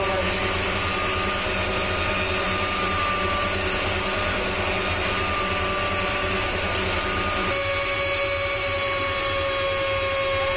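Steady whine of a small electric motor, a jeweller's rotary cutting hand machine running; its tone shifts about seven and a half seconds in.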